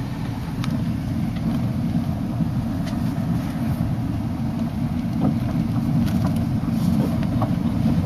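Car cabin noise while driving slowly: a steady low rumble of engine and tyres, with a few faint ticks.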